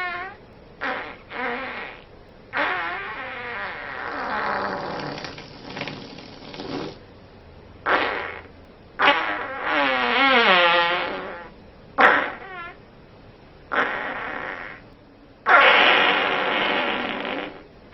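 A string of about nine farts, some brief and several drawn out for two to four seconds, many with a wavering, bending pitch.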